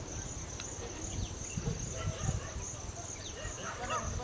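Insects chirping steadily in a high, evenly pulsing drone, over a low rumble.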